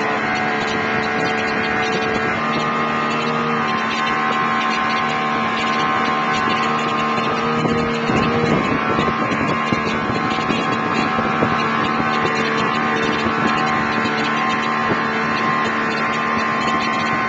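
Outboard motor running steadily at towing speed, with its engine note holding level over the rush of the wake and spray behind the boat.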